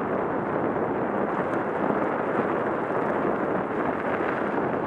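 Steady rushing noise of a bike moving fast along a packed snow trail: wind buffeting the microphone together with the tyres rolling over the snow.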